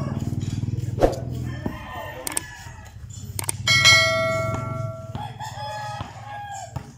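A rooster crowing, its loudest call about four seconds in, with a few sharp thuds of a basketball bouncing on the concrete court.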